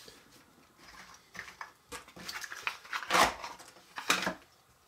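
Jigsaw puzzle pieces and their box being handled: a series of short scrapes, rustles and clicks, the loudest two about three and four seconds in.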